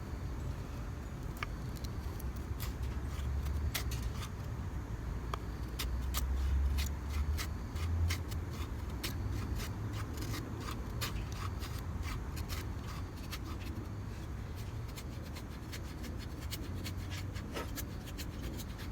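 Knife blade shaving a stick of firewood into a feather stick: many short, irregular scraping strokes, coming thicker in the second half, over a steady low rumble.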